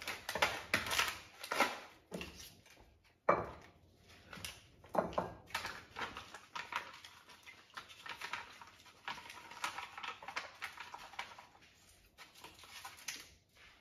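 Plastic seasoning sachets crinkling and rustling as they are snipped open with scissors and squeezed out over bowls of rice noodles, with scattered clicks and a sharp knock about three seconds in.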